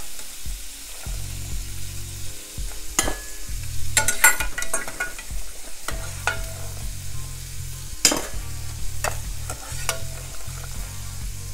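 Shrimp searing in hot oil in a skillet: a steady sizzle with a few sharp pops now and then, over a low hum.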